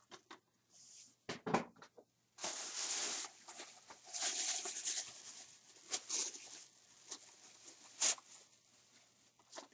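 Plastic bag rustling and crinkling as hands rummage through it, in two longer stretches, with a few sharp clicks and knocks in between; the loudest click comes near the end.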